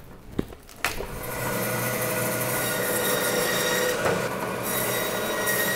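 Meat bandsaw starting up about a second in, then running steadily with a held whine as its blade cuts through a beef rib section, taking the plate off the rib bones. Two light knocks come just before the saw starts, as the meat is handled.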